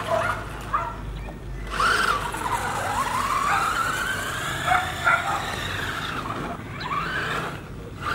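Remote-control car's motor whining as it drives, its pitch rising slowly and then falling, for several seconds. A dog yips a couple of times near the start.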